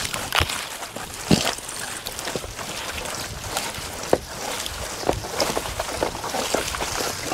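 Conifer branches rustling and brushing as a person pushes through dense brush on foot, with a few sharp knocks and steps against rock and branches.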